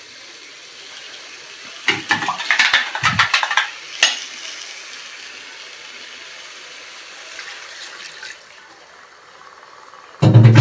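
Steady hiss of a pan cooking on the stove. About two seconds in, a spoon scrapes and clatters in the pan, a sharp knock follows at about four seconds, and a loud knock comes near the end.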